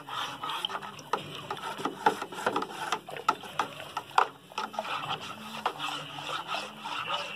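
Long plastic spoon stirring wine must in a plastic fermenting bucket: quick, irregular knocks and scrapes of the spoon against the bucket over the swish of the stirred juice.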